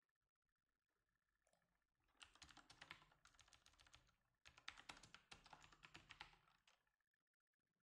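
Faint computer keyboard typing: two runs of rapid keystrokes, the first starting about two seconds in and the second, after a short pause, ending near the end.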